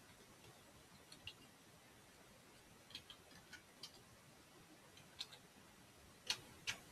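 Near silence broken by scattered light clicks, about ten of them in small clusters of two or three, the last pair near the end being the loudest.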